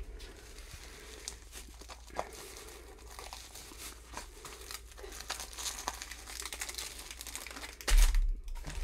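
Plastic packaging crinkling and rustling as it is handled, with many small crackles. Near the end there is a louder rustle and bump as a clear plastic bag of diamond-painting drill packets is set down on the table.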